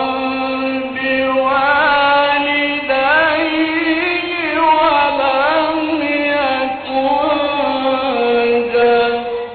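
A man reciting the Quran unaccompanied in the melodic mujawwad style: long held notes with ornamented wavering turns, pausing briefly twice between phrases.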